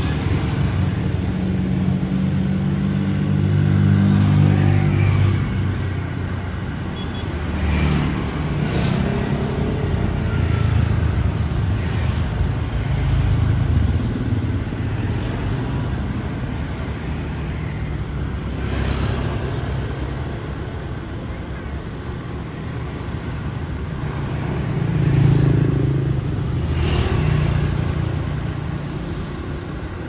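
Steady city street traffic: motor scooters and cars drive past one after another, their engines and tyres swelling and fading with each pass. The loudest pass comes near the end.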